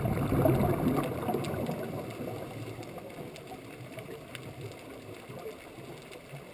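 Underwater recording: a scuba diver's exhaled bubbles gurgle and rumble, loudest about half a second in, then fade over the next few seconds to a quieter underwater hiss with a few faint clicks.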